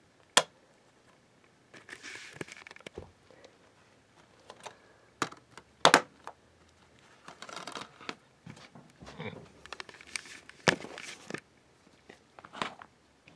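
Plastic DVD case being handled: sharp clicks and snaps, the loudest a double snap about six seconds in as the case is shut, with bouts of rustling and scraping in between.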